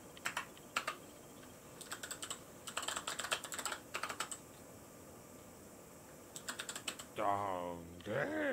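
Clicky mechanical keyboard keys with Kailh Box White switches, typed in short bursts of quick clicks. Near the end comes a louder pitched sound whose tones glide and waver.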